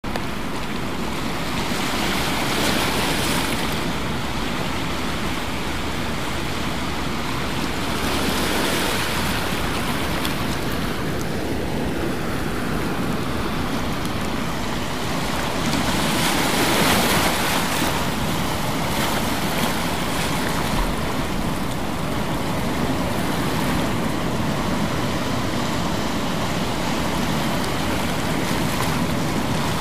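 Steady rushing water noise that swells and eases every few seconds, with no music or voices.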